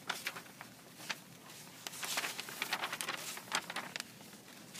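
Paper pages of a printed handout being flipped and handled: a run of crisp rustles and small clicks, busiest around the middle.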